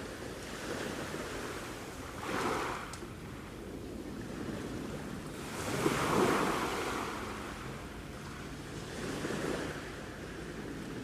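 Sea waves breaking and washing in over a steady surf hiss, swelling three times about every three and a half seconds, the loudest about six seconds in.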